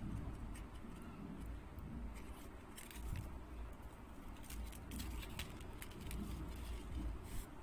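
Light clicking and rustling from handling a strand of pearl beads on nylon thread: small irregular clicks as the beads knock together while they are threaded and the beaded strip is moved.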